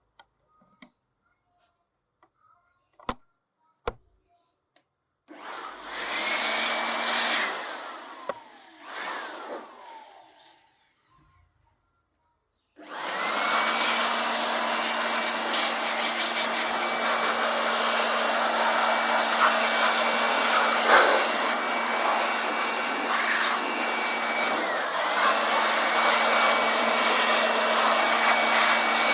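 Two clicks, then a small electric cleaning appliance's fan motor, used to clean dust out of a PC, switched on for two short runs and then left running steadily with a steady whine. Its pitch dips briefly about 25 seconds in.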